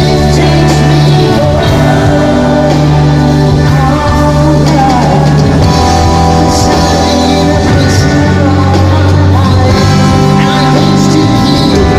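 A live pop-rock band playing, with drum kit, bass, guitar and keyboard, and a singer's voice at times over the steady bass notes.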